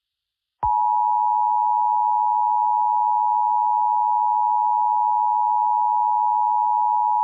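Emergency Alert System attention signal: a steady two-tone beep near 1 kHz (the 853 and 960 Hz pair) that begins about half a second in and holds unbroken. It is the tone that heralds a broadcast emergency alert message.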